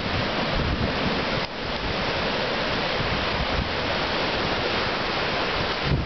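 Pacific Ocean surf surging and foaming through a narrow channel between coastal rocks: a steady rush of churning water, with wind buffeting the microphone in choppy low gusts.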